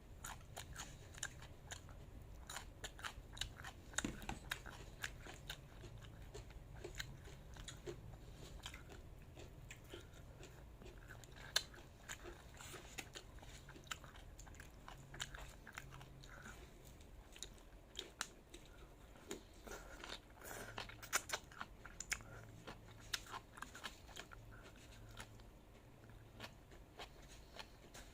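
Close-miked chewing and biting of food, with many crisp crunches and sharp clicks from the mouth at an irregular pace.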